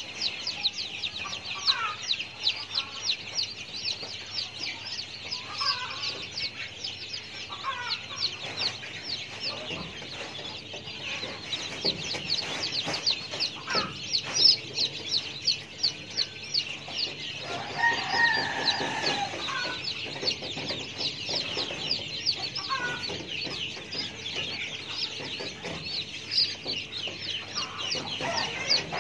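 Many birds chirping rapidly and without a break, with a longer, lower call about two-thirds of the way through.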